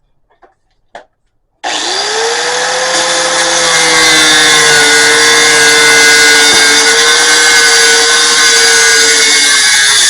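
Cutoff wheel starting about a second and a half in and cutting into the steel housing of a used oil filter: a loud, steady grinding whine over a high hiss, the whine rising briefly as it spins up.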